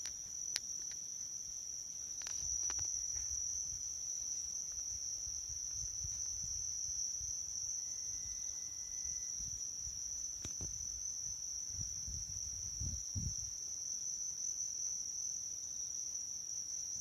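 Crickets trilling in a steady, unbroken high-pitched chorus, with a few soft low rumbles and a couple of faint clicks.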